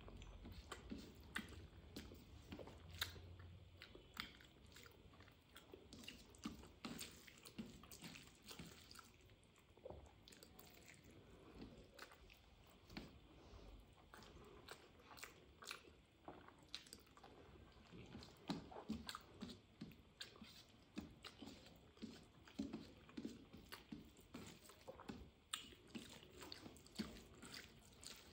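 Quiet chewing and wet lip-smacking of a person eating rice and mutton curry with her hands, many short soft smacks and clicks, coming thicker in the second half.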